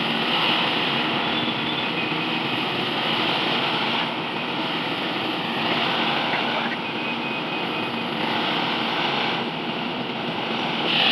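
Rice combine harvester running, a steady mechanical drone of engine and machinery.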